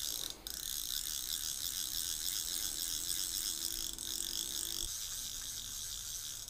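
Fly reel's click-pawl ratcheting in a fast, steady buzz of fine clicks as backing line is cranked onto the spool by hand.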